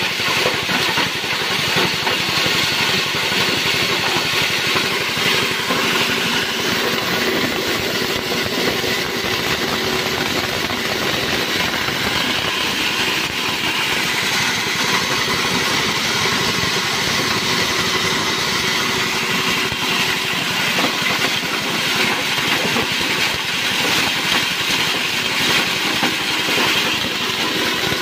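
Small petrol engine running steadily under load, belt-driving a chopper's blades as material is fed into the hopper and shredded.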